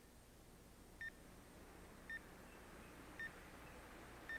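Bedside heart monitor beeping faintly: one short high beep about once a second, following the patient's heartbeat.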